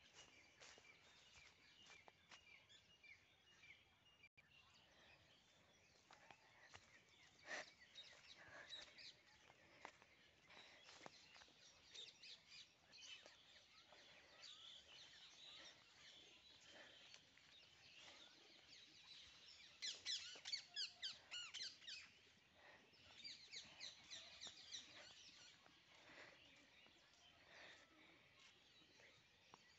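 Faint birds chirping in quick runs of short, high notes, with the busiest runs about two-thirds of the way through, over soft outdoor background noise.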